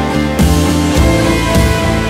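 Background music with a steady beat of about two hits a second.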